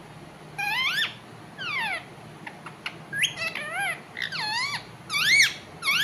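Rose-ringed parakeet giving a string of short, shrill whistled calls, most sweeping up then down in pitch, starting about half a second in. The owner takes the calling as the bird asking to be put outside in the courtyard.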